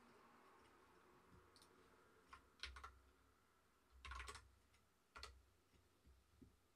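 Faint computer keyboard clicks in a few short clusters, the loudest about three seconds in and about four seconds in.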